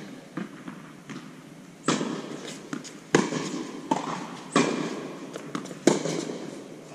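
Tennis rally in an indoor hall: rackets strung with Signum Pro Firestorm strike the ball, and the ball bounces on the hard court. There are about five sharp pops a second or so apart, each echoing through the hall; the loudest comes about three seconds in.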